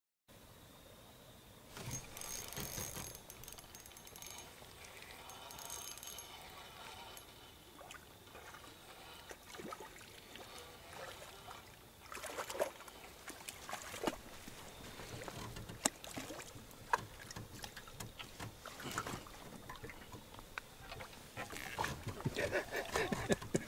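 Handling noise in a small fishing boat: scattered light knocks and clicks with water trickling, growing busier near the end.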